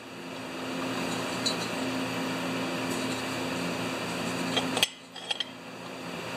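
A machine running with a steady hum and hiss. It cuts off with a sharp click about five seconds in, and a few light metal clinks follow before it builds again near the end.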